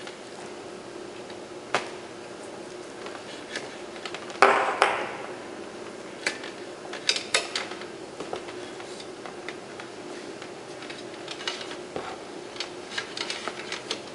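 Sensor cables and their round metal multi-pin plugs being handled and laid out on a wooden workbench: scattered light clicks and knocks, a brief scrape about four and a half seconds in, and a quick run of clicks near the end, over a faint steady hum.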